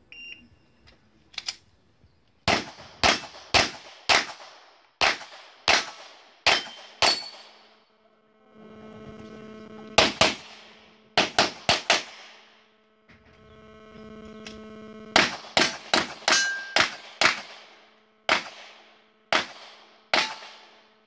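A short shot-timer beep, then pistol shots fired in fast strings of two to six, broken by pauses while the shooter moves between positions; some shots have a ringing tail, typical of steel targets being hit. A steady hum sits under two of the pauses.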